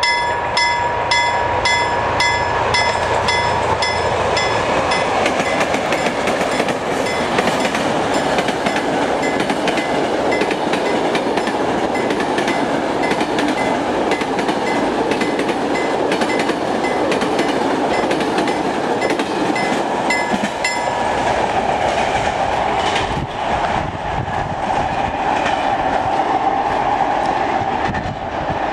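Freight train of loaded log wagons rolling past: steady rumble and clickety-clack of wheels on the rails. A level-crossing warning bell rings in quick, evenly repeated strikes over it and stops about two-thirds of the way through, and the rumble fades near the end as the train draws away.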